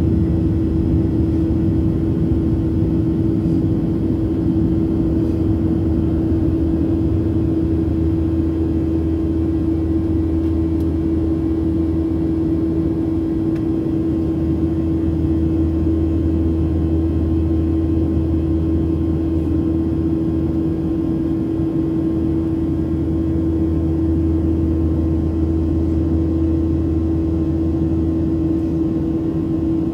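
Cabin noise of a Boeing 737-700 in climb, heard from inside the cabin beside the engine: its CFM56-7B engines running steadily, with a strong steady droning tone over a low rumble and an airflow hiss.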